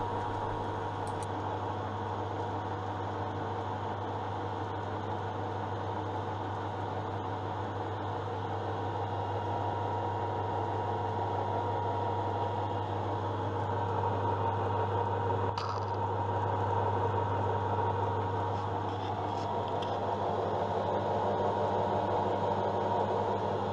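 Hafco AL-336 centre lathe running with its geared headstock, gearbox and apron turning over: a steady mechanical hum with a constant gear tone, the machine being run so the freshly changed gearbox oil circulates and its levels can be checked. A brief click about two-thirds of the way through.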